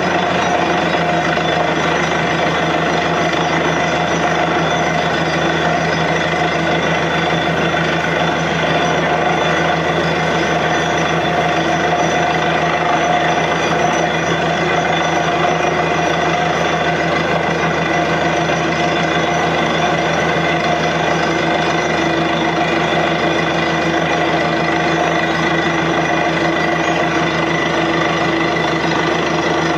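Truck-mounted borewell drilling rig running steadily, its engine and drilling machinery making a loud, continuous mechanical drone with several held tones.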